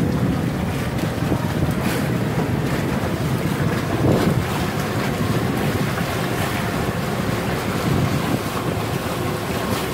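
Wind buffeting the microphone over the steady rush and splash of water along the hull and outrigger floats of a solar electric outrigger boat under way.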